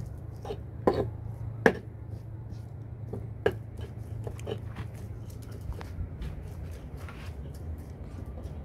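Stone pestle pounding and grinding chilies and shallots in a stone mortar: irregular knocks of stone on stone, three sharper ones in the first half, with fainter scraping taps between, over a low steady hum.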